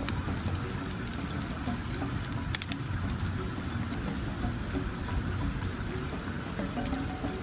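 Outdoor riverside ambience: a steady low rushing noise with a few scattered sharp crackles.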